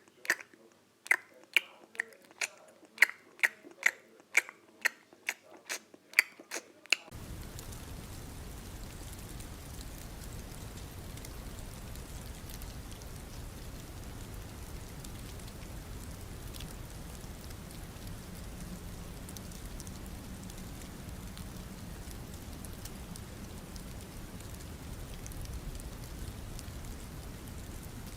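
Crunching footsteps in snow, about two steps a second. About seven seconds in they cut off and give way to a steady hiss.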